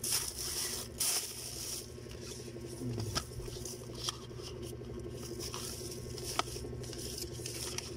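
Plastic-wrapped face masks and cardboard mask boxes being handled: light rustling and scratching with a few sharp taps, over a steady low hum.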